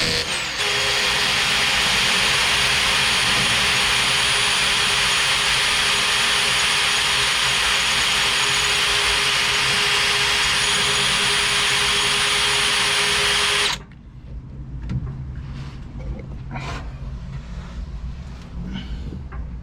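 Power drill boring into thick steel plate, running steadily at full speed for about fourteen seconds after a brief dip at the start, then stopping abruptly. The bit has not yet broken through. A few light knocks and handling sounds follow.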